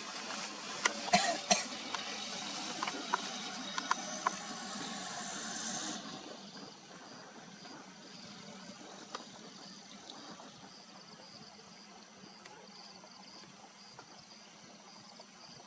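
Lion feeding on a warthog carcass: irregular crunches and sharp cracks of bone and flesh being chewed through the first six seconds or so, after which it goes quieter with only a faint high, pulsing chirr in the background.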